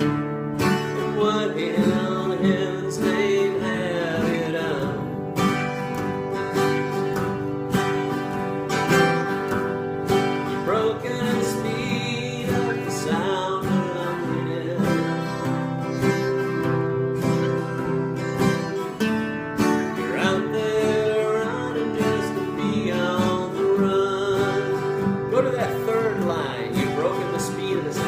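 Acoustic guitar music in a country style, steady plucked and strummed notes, with a melody line that glides in pitch now and then above it.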